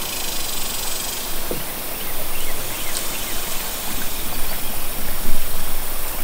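Steady rush of running river water, with a few faint bird chirps over it.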